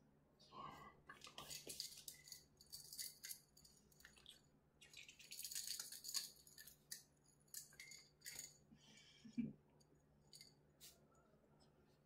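Faint, irregular crinkling and scratching of a quilted absorbent pad as a puppy scrambles on it and is handled, with scattered light clicks.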